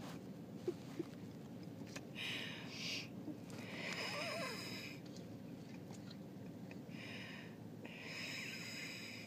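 An aerosol spray can hissing in four bursts of about a second each, bug spray being sprayed at a cockroach. Two light clicks come about a second in.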